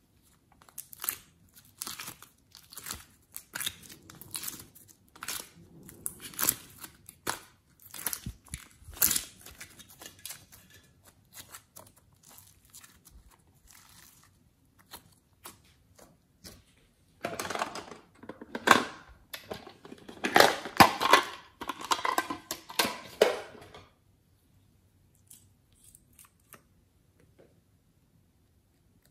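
Glossy slime being pulled and stretched by hand, giving a run of sticky crackles and pops. The crackling is densest and loudest about two-thirds of the way through, then dies away to a few faint ticks.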